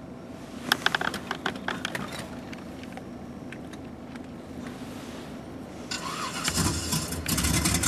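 A run of sharp clicks and knocks as a phone is handled and fitted into a dashboard mount, over the low hum of the car. About six seconds in, the XLR8 app's recorded engine-start sound begins playing through the phone's speaker and grows louder.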